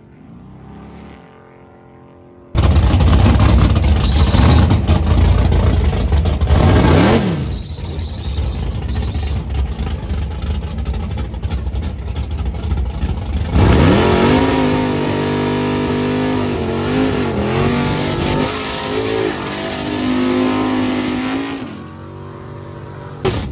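Drag-racing car engines running hard at full throttle, coming in abruptly and loud a couple of seconds in. An engine is then revved, its pitch sweeping up and wavering, before dropping away near the end.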